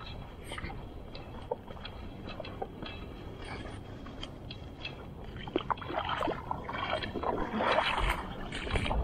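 Shallow water sloshing and splashing around the legs of an angler wading on a tidal flat, with scattered small clicks. It gets busier and louder over the last three or so seconds.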